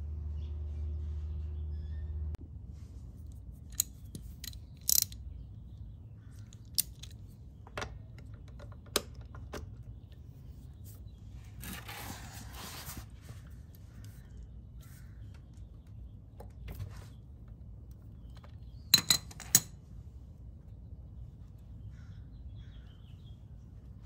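Craftsman ratchet and socket working a bolt on a scooter's final-drive case: scattered sharp metallic clicks and clinks, a run of ratchet clicking for about a second and a half near the middle, and three quick clinks later on. A low steady hum cuts off about two seconds in.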